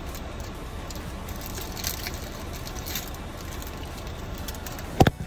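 Low steady hum inside a car, with a few faint clicks of something being handled. A single sharp, loud knock comes near the end.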